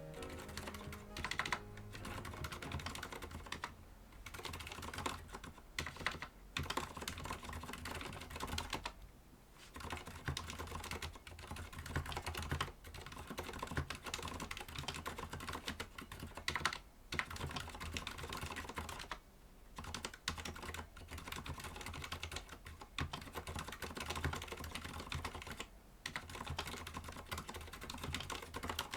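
Continuous typing on a mechanical keyboard with Cherry MX Silent Red (low-noise linear) switches: rapid, damped key clicks, with a few short pauses.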